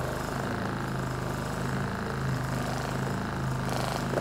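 Handheld percussive massage gun running with a steady, rapid buzz, its head pressed against the sole of a bare foot.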